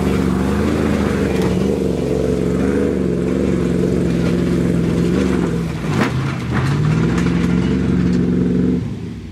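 Lifted Ford F-150 pickup's engine revving hard under load as the truck churns through a muddy marsh, the pitch wavering, dropping about six seconds in and climbing again before fading near the end. Mud and grass spatter over the engine note.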